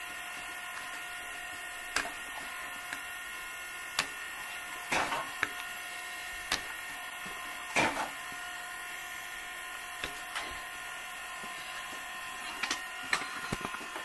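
Electric tire regrooving iron cutting new grooves into a truck tire's tread. A steady electrical hum runs throughout, with a sharp click about every two seconds and a few louder crackling scrapes as the blade pulls through the rubber.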